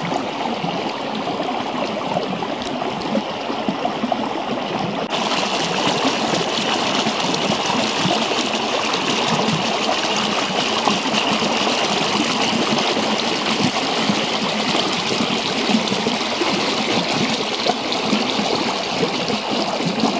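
Shallow mountain stream running and babbling over stones, a steady rush of water. About five seconds in the rush turns brighter and hissier, as of water splashing close by past a rock.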